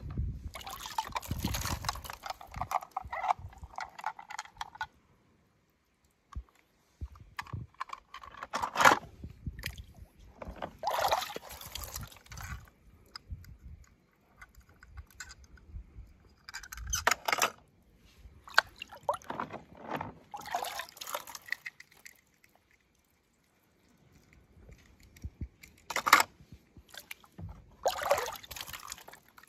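Water splashing and dripping in a series of short bursts with quiet gaps between them, as small die-cast toy cars are moved through and lifted out of a shallow tub of water.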